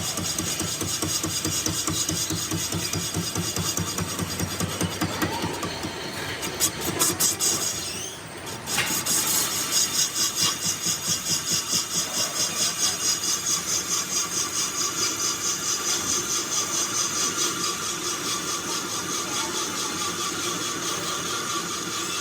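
Workshop machinery running with a steady, rhythmic pulse. A few louder knocks come around seven seconds in, then the machine settles into a slower, even beat of about two to three pulses a second.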